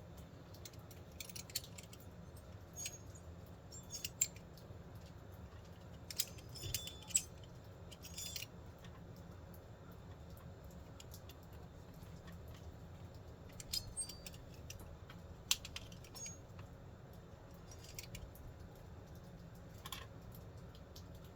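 Small parts and hardware being handled during engine-bay work: scattered light clicks and rattles in short clusters, over a steady low hum.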